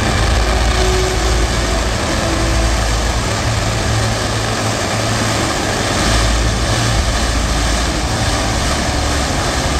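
Fireworks finale barrage: many shells and crackling effects bursting at once, merging into a continuous loud rumble and crackle with no gaps.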